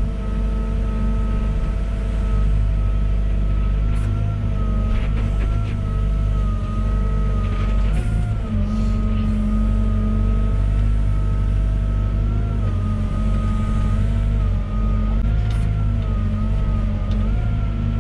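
Volvo EWR150E wheeled excavator's diesel engine running under load, with a steady whine that wavers slightly in pitch as it works. A few short clattering scrapes, such as gravel being moved, come through around the middle and near the end.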